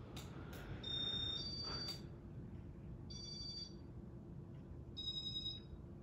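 An electronic telephone-like ring sounds in short bursts about every two seconds, each of several high pitches at once. Under it runs the steady low hum of a Casablanca Panama ceiling fan on high speed, with a few light clicks in the first two seconds.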